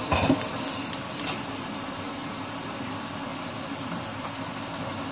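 Steady kitchen hum and hiss, with a few light clicks and taps in the first second or so.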